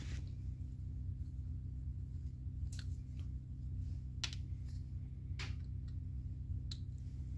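A few separate light clicks and taps of small carburettor parts and tools being handled, over a steady low hum.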